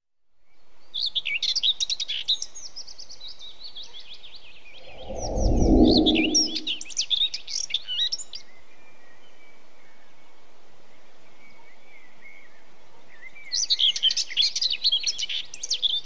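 Birds chirping and singing in three bursts of quick high notes over a faint steady hiss. A deep rumble about five seconds in lasts over a second and is the loudest moment.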